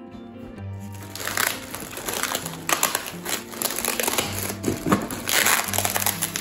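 Plastic air-pillow packing and zip bags of plastic game pieces crinkling and rustling as hands dig through a cardboard shipping box. It starts about a second in, over soft background music.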